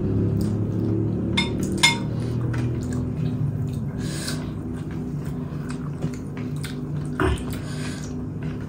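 A few clinks of dishes and cutlery during a meal, two sharp ringing ones early and softer ticks after, over a steady low background rumble.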